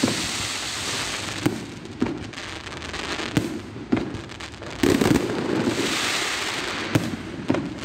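Fireworks display: about eight sharp bangs of bursting shells at irregular intervals over a steady hiss, the loudest about five seconds in.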